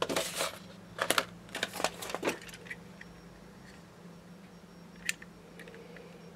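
Small clicks and light rattling from a scalpel lifting a stencil piece and handling a plastic model: a quick cluster in the first two seconds or so, then a single sharp click about five seconds in, over a faint steady hum.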